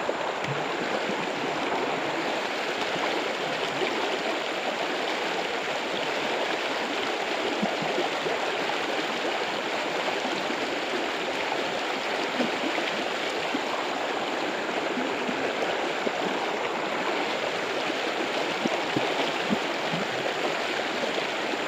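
Shallow, fast-flowing stream rushing over a rocky bed: a steady, even water noise.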